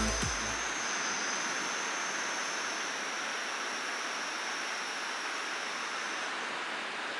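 Steady, even rushing of surf on a beach, with a thin high whine over it that stops about six seconds in.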